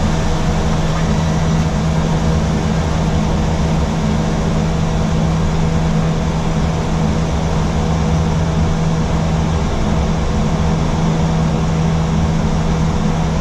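Steady flight-deck noise of an Airbus A320 climbing: an even rush of air with a constant low hum underneath, unchanging throughout.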